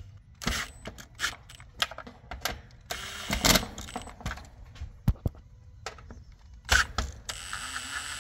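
Milwaukee M18 cordless drill driving screws to fix a plastic soft-starter box onto an AC condenser's panel: short runs of the drill motor, about three seconds in and again near the end, among clicks and knocks of handling.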